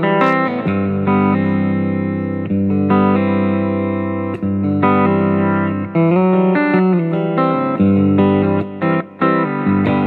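Outro music led by guitar, its chords changing every second or so, with two short breaks near the end.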